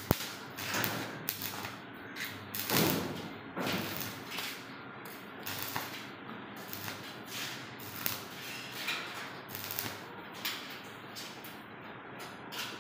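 Stick (arc) welding on a sheet-metal showcase frame: the arc crackles and pops in short, irregular bursts.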